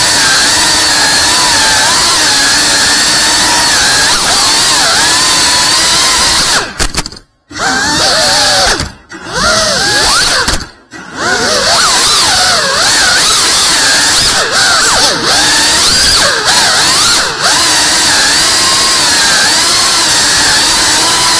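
3.5-inch cinewhoop FPV drone's motors and propellers whining, heard from on board. The pitch rises and falls with the throttle, and the sound dips out briefly three times about a third of the way through as the throttle is chopped.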